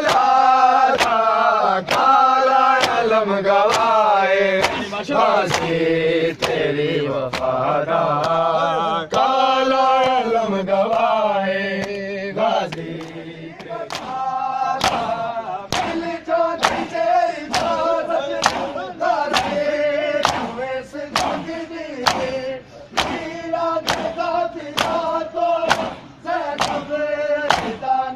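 A group of men chanting a noha (Shia lament) in chorus, with a steady beat of hands slapping bare chests in matam. The slaps come more clearly to the fore in the second half.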